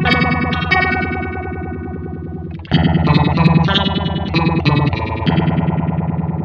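Distorted electric guitar, a Squier Classic Vibe 50s Telecaster, played through a Maestro Orbit Phaser pedal. The phaser sweeps over ringing chords and picked notes. The playing stops briefly a little before halfway, then starts again louder.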